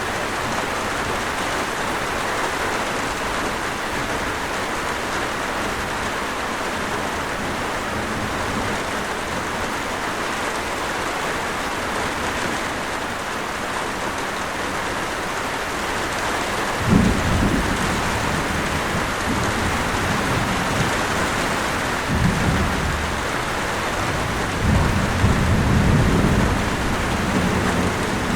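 Steady heavy rain hissing, with low rolls of thunder rumbling in about two-thirds of the way through and again twice near the end.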